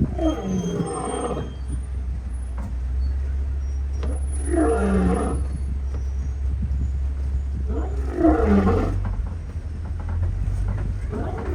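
Lions roaring back and forth: three long roars about four seconds apart, each falling in pitch, with a fourth starting near the end.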